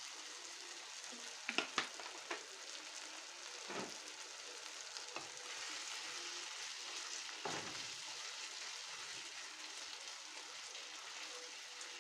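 Tomato, onion and spice base sizzling and simmering in a pan, just topped up with hot water. A few light knocks of a utensil against the pan come about two seconds in.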